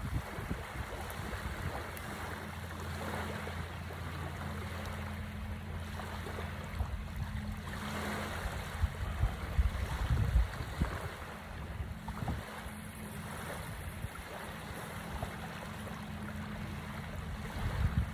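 Small waves washing onto a sandy beach, with wind gusting on the microphone. A steady low hum runs underneath, fading for a while in the middle.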